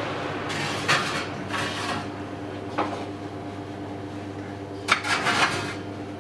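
A stainless-steel oven door is pulled open with a clunk about a second in, followed by a knock. Near the end a metal tray clatters as it is slid onto the oven rack. A steady machine hum runs underneath.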